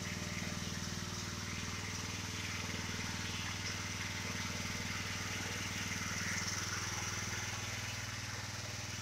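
Gas-engine pressure washer running steadily, a low even hum with no change in speed.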